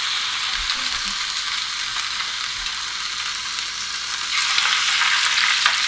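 Salmon fillets sizzling in hot butter and olive oil in a frying pan, a steady hiss that grows louder about four seconds in as a second fillet is laid in.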